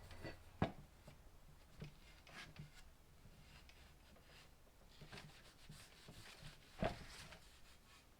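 Faint rubbing and handling of a wooden axe handle being wiped with an oily rag, punctuated by two sharp knocks, one about half a second in and one near the end.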